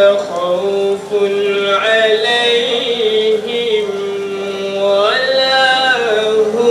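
A man chanting into a microphone in long, drawn-out notes that slide between pitches, with short breaks between phrases.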